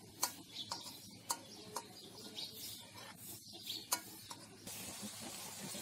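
Metal spoon stirring potato wedges in an aluminium wok, with sharp clinks and scrapes of the spoon against the pan. Near the end it gives way to a steady hiss of the spiced potatoes cooking in the pan.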